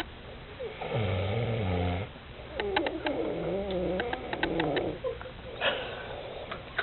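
A man snoring in deep sleep. One long, low snore comes about a second in, followed by a longer snore whose pitch wavers.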